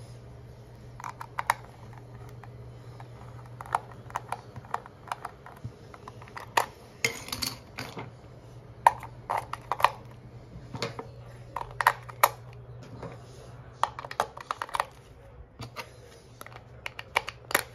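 Irregular sharp plastic clicks and taps as the battery cover comes off a plastic toy's base and three AAA alkaline batteries are handled and pressed into its spring-contact battery compartment, with a faint steady low hum underneath.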